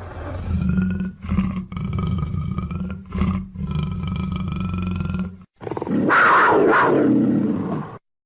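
Big cat growling in long, low rumbles broken by short pauses, then a louder snarling roar near the end that cuts off suddenly.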